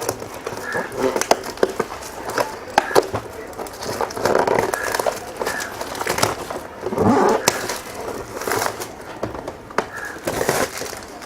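A trimmer kit's retail box and packaging being opened and handled by hand: irregular rustling, scraping and sharp clicks.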